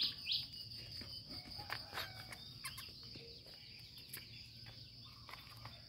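A steady high-pitched insect drone, like crickets, with scattered faint scuffs and clicks; a repeating sharp chirping call ends with its last two chirps right at the start.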